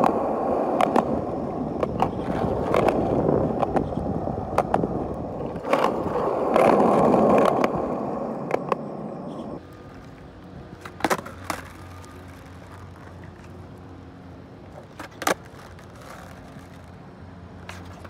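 Skateboard wheels rolling over asphalt in a steady rumble, with scattered clicks from the board. About ten seconds in the rolling stops suddenly, and a few sharp clacks of the skateboard deck and wheels striking the pavement follow as flip tricks are tried.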